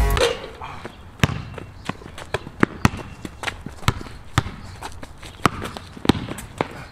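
A basketball dribbled on a concrete court: a string of sharp, irregularly spaced bounces, some louder than others.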